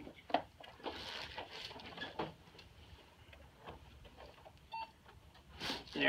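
Handling noise from a patient's leg being flexed and pressed on a padded vinyl treatment table: soft clothing and cushion rustle, with one sharp click about a third of a second in.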